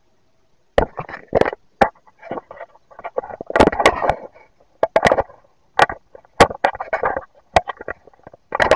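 Irregular run of sharp plastic clicks and knocks as an Acer Aspire One V5-171 laptop is handled and opened, with its battery and cover being taken off. The clicks start about a second in and come several a second, unevenly.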